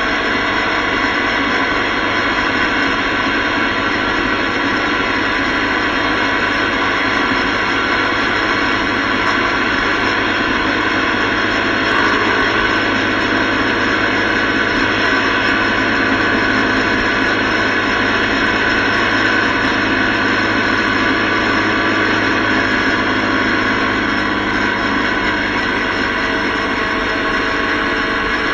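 Motorcycle running at a steady cruising speed on the highway, heard through a bike-mounted action camera: a constant engine drone under loud wind and road noise, with no change in pace.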